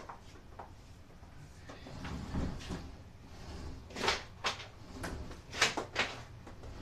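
Refrigerator cabinet being handled and shifted by hand: a low rumble, then a quick series of sharp knocks and clacks against its metal casing in the second half.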